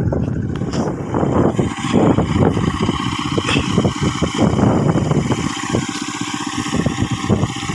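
Small engine of an ISEKI PC4 rice transplanter running steadily, a rapid even chugging.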